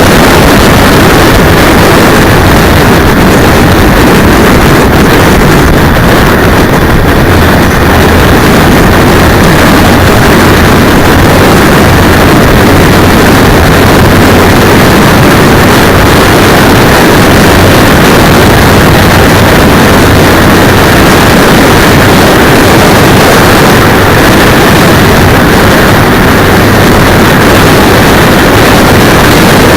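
A moving motorcycle heard through a cheap 808 keychain camera's microphone strapped to the handlebar brake cylinder: a constant, distorted roar of wind and engine that stays close to full loudness.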